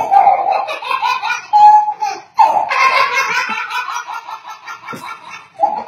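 Baby laughing hard in repeated high-pitched bursts, with a short pause about two seconds in.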